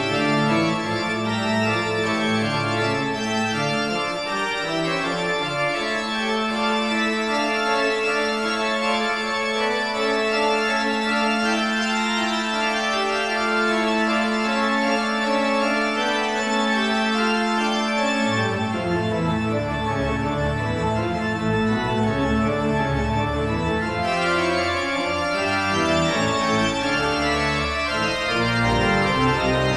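Background organ music with sustained chords. A long held low note gives way to a moving bass line about two-thirds of the way through.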